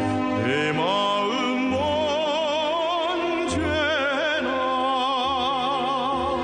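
Music: a single voice sings long held notes with wide vibrato, sliding up into several of them, over a steady instrumental backing.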